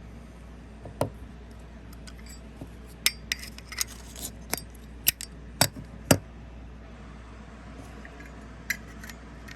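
Metal Zippo lighter parts clinking and clicking as they are handled: a run of sharp separate clicks, bunched together in the middle, over a steady low hum.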